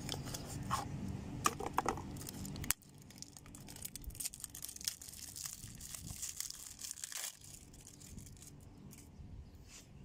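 Irregular crinkling and tearing of packaging as a new magnetic contactor is unwrapped and handled, louder for the first few seconds, then fainter after a sudden drop about three seconds in.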